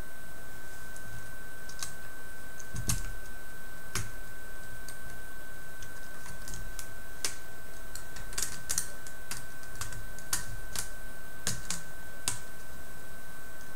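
Irregular light plastic clicks and taps, thickest in the middle, from the plastic link tracks and chassis of a Tamiya-based robot tank kit being handled and fitted over its wheels. A steady high tone hums underneath.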